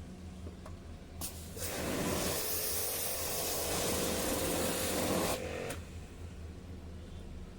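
A pressurised spray jet hissing in one long burst of about four seconds, after a short burst about a second in, over a low steady hum.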